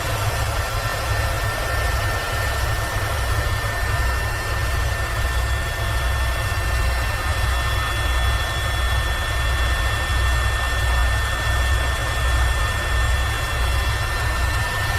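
Airbus H130 EcoStar helicopter in steady cruise flight, heard on board. Its single turboshaft engine and rotors give a deep, steady rumble, with a constant high turbine and gearbox whine held on a few fixed pitches.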